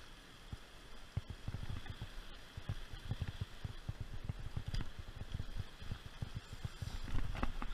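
Steady rush of a mountain creek behind irregular low rumbling bumps on a body-worn camera's microphone as the wearer moves about, with a couple of light knocks, one near the middle and one near the end, as gear is set down on rock.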